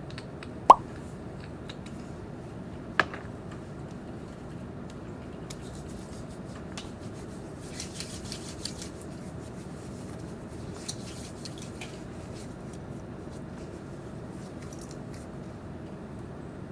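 Two sharp clicks, then scattered light ticks and rustles of small objects being handled, over steady low room noise.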